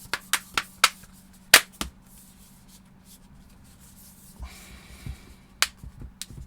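A run of sharp plastic clicks as tablet casing parts and clips are pressed and snapped into place, with the loudest click about one and a half seconds in and a few more near the end.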